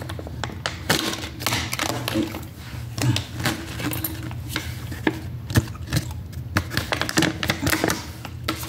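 Plastic cosmetic packaging and its paper insert crinkling and rustling as they are handled and opened, with many small, irregular clicks and crackles.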